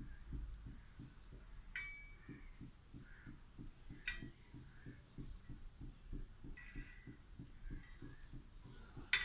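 Hands breading cutlets: a few sharp clinks against steel plates and bowls, the loudest at the very end, with a short rustle of breadcrumbs in between. A faint low pulsing, about four or five times a second, runs underneath.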